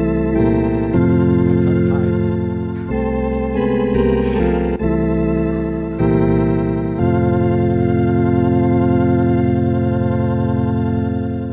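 Organ playing a slow series of held chords, changing every second or two, with the last chord held from about seven seconds in.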